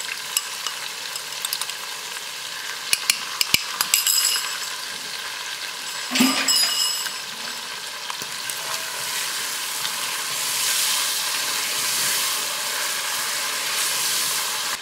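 Quail pieces sizzling as they fry in oil with a ginger-garlic and ground-spice masala in an enamelled pot, a wooden spoon stirring and knocking against the pot. The clicks of the spoon are thickest in the first few seconds; the sizzling grows louder in the second half.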